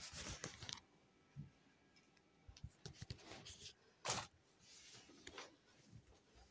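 Faint rustling and brushing of plush fabric as the toys are handled, in short scattered swishes, the sharpest one about four seconds in.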